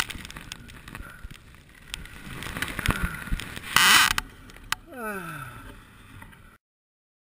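A man moaning in pain after a dirt bike crash, with a long falling "owww" about five seconds in. Just before it comes a short harsh burst of noise, and the sound cuts off suddenly near the end.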